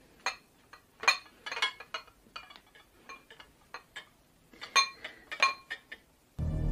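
China bowl on a serving tray clinking: a string of sharp, separate clinks with short ringing tones. Loud music comes in at the very end.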